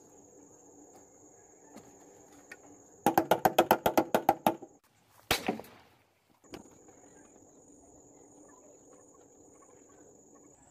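A rapid burst of about a dozen gunshots, like automatic fire, lasting under two seconds, then one sharp single shot a moment later. Crickets trill steadily underneath.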